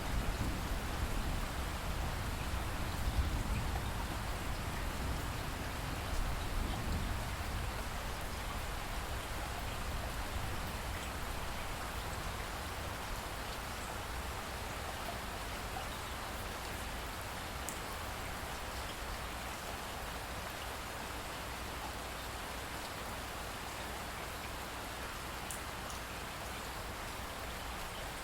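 Steady rain falling, an even hiss of drops. A low rumble of thunder dies away over the first several seconds.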